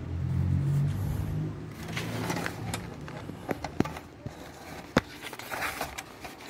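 Handling noise from a phone camera being moved about: rubbing and scraping with a few sharp knocks, the sharpest about five seconds in. A low hum runs under the first two seconds and then fades.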